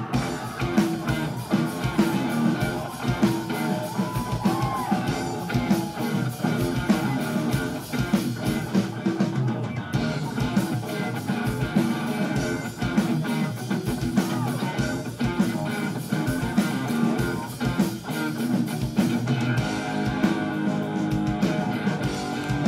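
Rock band playing live: electric guitars and bass guitar over a steady drumbeat.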